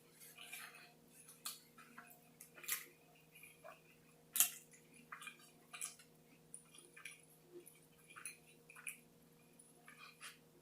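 Close-miked chewing of a Whopper burger: irregular wet smacks and clicks of the mouth, one louder smack about four seconds in.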